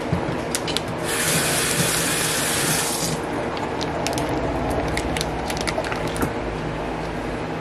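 Kitchen tap running for about two seconds, starting and stopping sharply, among scattered light clicks and clatter of kitchen utensils over a steady low hum.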